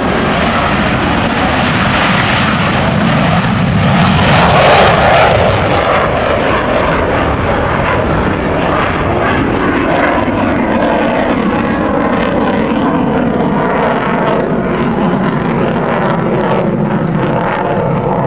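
F-16 Fighting Falcon jet engine at takeoff power as the jet rolls down the runway and climbs away, loudest about four to five seconds in as it passes, then a steady rushing noise as it climbs overhead.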